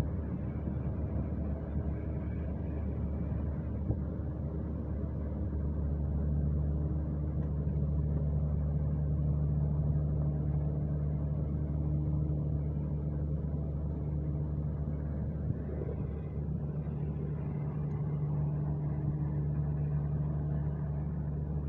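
Diesel engine of a road compactor running steadily, with a further steady low hum joining about six seconds in.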